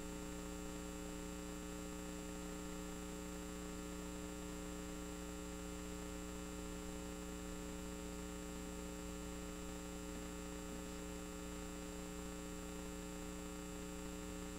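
Steady electrical mains hum, several steady tones at once over a faint hiss, unchanging throughout.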